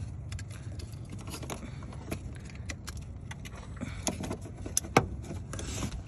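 Hands working a plastic wiring plug onto the hood latch sensor harness of a BMW F30: scattered small clicks and rattles, the sharpest about five seconds in, over a steady low rumble.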